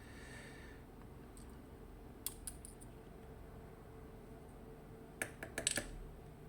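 Small metal lock pins and parts being handled and set down, giving light clicks: one about two seconds in and a quick run of clicks near the end.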